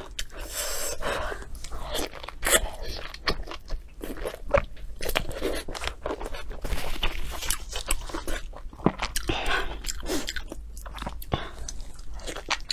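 Close-miked eating of braised bone-in ribs: biting, tearing and chewing the meat, heard as a steady run of irregular crunches and clicks.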